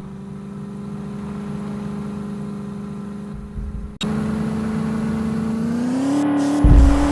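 Mahindra Thar engine running steadily, then, after an abrupt cut about four seconds in, revving up with its pitch rising. A heavy low rumble comes near the end.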